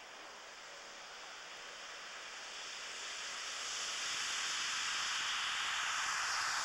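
Small turbojet engine of a Mitchell Wing B-10 ultralight running at takeoff power: a hissing rush with a steady high whine in it. It grows louder over the first four seconds as the aircraft comes closer, then holds.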